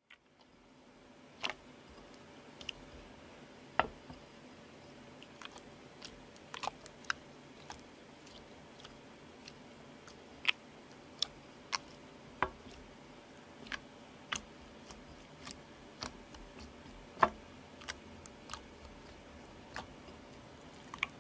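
Homemade borax slime being kneaded and squeezed by hand in a ceramic bowl, making short, irregularly spaced wet clicks and small pops, a couple of dozen in all, with little in between.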